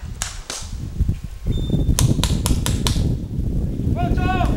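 Paintball markers firing: a few single sharp shots, then a quick string of about six shots about two seconds in, over a low rumble on the microphone.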